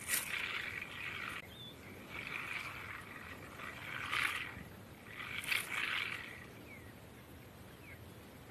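Porcupine rattling its raised quills in several hissing bursts, each about a second long, with short pauses between. It is a defensive warning to a leopard close by.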